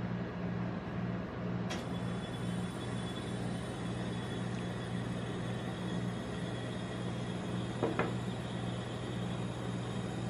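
Steady low hum of a rolled-ice-cream machine's cold plate refrigeration running, with a short double knock about eight seconds in.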